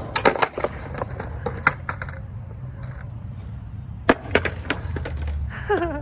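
Skateboard rolling on skatepark ramps with a steady wheel rumble and several sharp clacks of the board, the loudest about four seconds in. A short voice-like call near the end.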